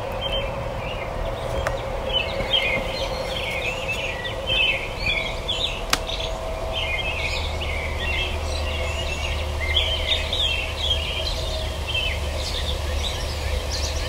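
Several songbirds chirping and singing over one another in a sunrise chorus, quick overlapping phrases throughout, over a steady low hum. A single sharp click about six seconds in.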